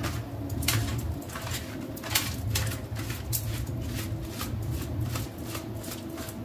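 A deck of oracle cards being slid and spread by hand into a fan across a glossy tabletop: a run of irregular soft clicks and slaps, over a low steady hum.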